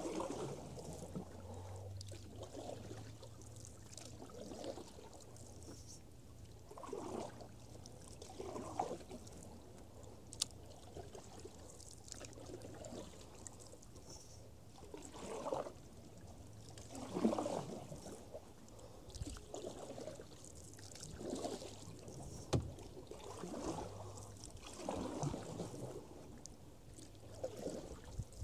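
Canoe paddle strokes: the paddle swishes and splashes through the water about every one to two seconds, with a couple of sharp knocks.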